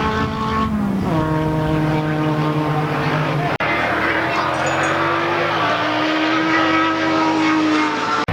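Classic single-seat race car engine running hard at high revs. Its pitch drops about a second in, then holds fairly steady with small rises and falls, with a brief sharp break partway through.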